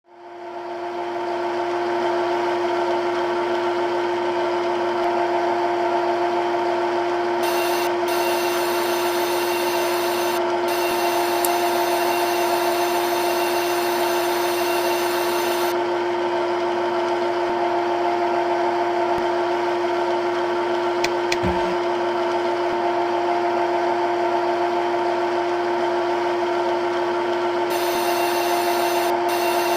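CNC turn-mill machine running with a steady, pitched hum under a noisy cutting sound. A higher hiss comes in for several seconds twice, and there is a brief knock about two-thirds of the way through.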